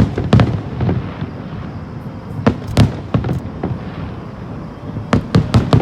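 Fireworks display: aerial shells bursting in quick volleys of sharp bangs, in three clusters about two and a half seconds apart, each bang trailing a low rumbling echo.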